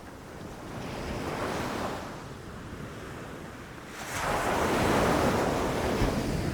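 Ocean waves rushing onto shore and breaking: a smaller surge about a second in, then a louder wave crashing about four seconds in and washing back, with some wind on the microphone.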